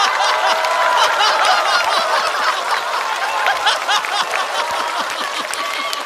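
A large studio audience laughing and clapping at a punchline, many voices laughing at once over steady applause that eases slightly toward the end.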